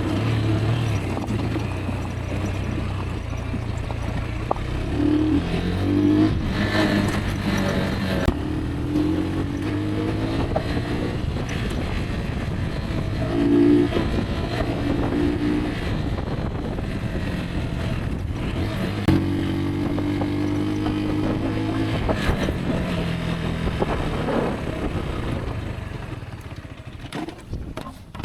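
Rieju Aventura 125's single-cylinder engine running under way off-road, its pitch rising and falling as the throttle is opened and closed. It quietens near the end.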